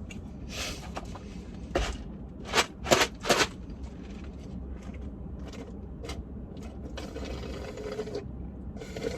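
Close-up eating sounds: a string of short crinkles and clicks from handling food and its packaging, the loudest about three seconds in, with a longer rustle near the end. A steady low rumble runs underneath.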